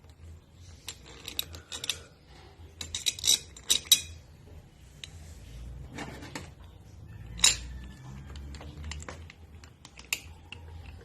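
Irregular clicks and knocks of pressure-washer parts being handled and fitted back together during reassembly, with a cluster of rapid clicks early on and a few single sharper knocks later, the loudest about seven seconds in.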